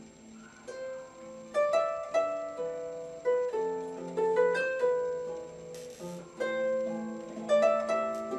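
Solo harp playing a slow melody, single plucked notes sounding one after another and left to ring into each other.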